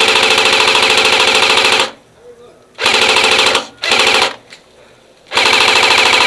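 Airsoft electric gun firing full-auto in four bursts: a rapid, even rattle of shots over the gearbox whir. There are short pauses at about two seconds, near four seconds and near five seconds.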